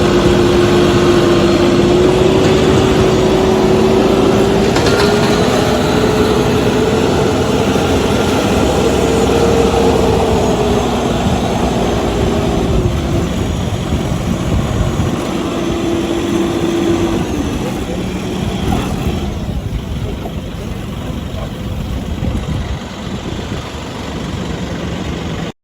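Small tractor engine running steadily, with a slight rise and fall in pitch, growing quieter over the last few seconds.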